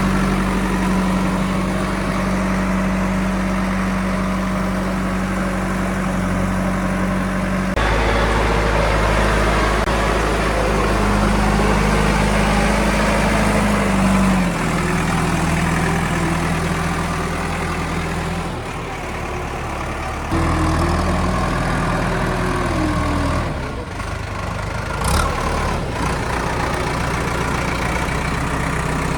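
JCB backhoe loader's diesel engine running steadily with a low hum, its sound changing abruptly several times, with a short knock near the end.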